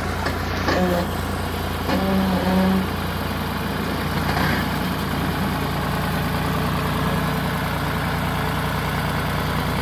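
Farm tractor's diesel engine running steadily under load as it drives a rear-mounted rotary tiller through the soil.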